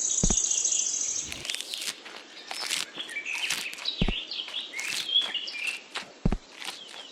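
Small birds chirping and twittering, with a fast high trill in the first second. A few brief low thumps sound among the calls.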